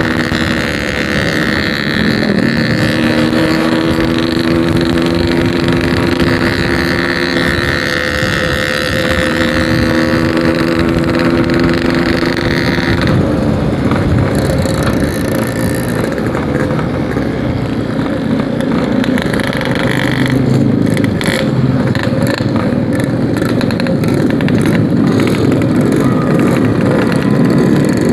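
Yamaha RX-King two-stroke motorcycle engine running under way, its pitch stepping up and down a few times with the throttle. About halfway through, wind and road rush on the microphone grow and cover much of the engine tone.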